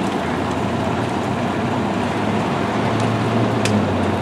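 Steady street noise of traffic and idling vehicle engines, with a low engine hum swelling about three seconds in.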